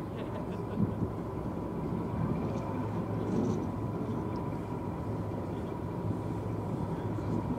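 BR Class 14 diesel-hydraulic shunter's Paxman Ventura engine running steadily at low revs: a low hum with a thin, steady whine above it.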